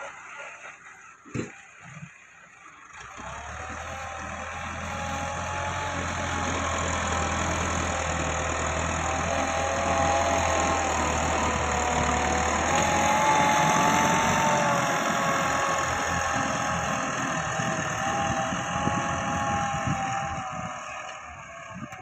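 Massey Ferguson 385 tractor's four-cylinder diesel engine running under load while its front blade pushes soil, the engine note wavering up and down. The first few seconds are quieter, with one sharp knock, before the engine grows louder about three seconds in.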